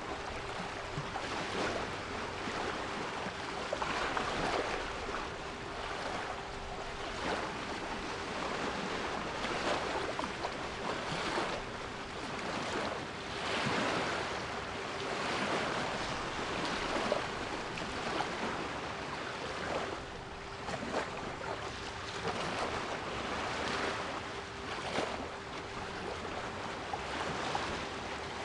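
Sea waves surging and washing in every few seconds, with a faint steady 396 Hz pure tone running underneath.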